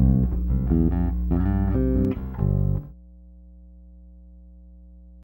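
Electric bass guitar playing a line of plucked notes over an electrical mains hum. About three seconds in the bass stops, leaving the hum on its own: a quieter, steady buzz with several harmonics, the kind left by poorly grounded AC wiring. It cuts off just before the end.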